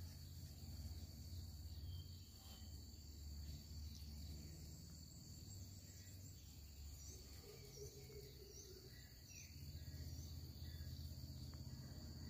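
Faint outdoor ambience: insects keep up a steady high-pitched drone, with a few short bird chirps from about seven to ten seconds in, over a low rumble.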